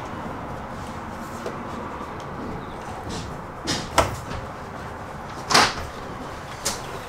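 Someone clambering out through a pickup truck's open driver's window: a few knocks and bumps of body and shoes against the door and cab in the second half, the loudest about four and five and a half seconds in, over a steady background hum.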